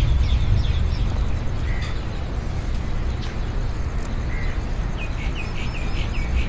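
Street ambience: a steady low rumble with birds chirping over it, a quick run of repeated chirps near the end.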